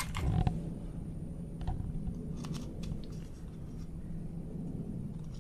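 Faint small clicks and handling noise as a small knife cuts off the end of the serving-thread binding at the base of an arrow's feathers, over a low steady hum.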